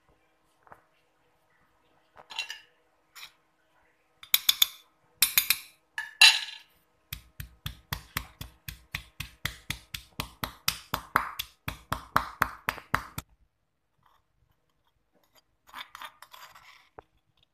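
Stone pestle pounding chillies and spice paste in a granite mortar: a few scattered knocks and some louder, rougher strokes, then a steady run of strikes about four a second for roughly six seconds. A short scraping sound near the end.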